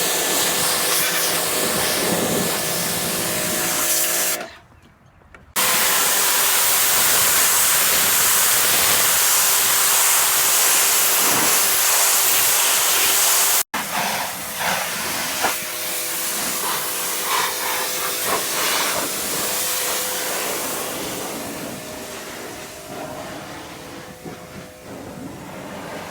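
Ryobi 2000 psi electric pressure washer running, its motor humming under the loud hiss of the high-pressure water spray. The spray and motor cut out for about a second about four seconds in, then start again. In the second half the spray sounds rougher and fades gradually toward the end.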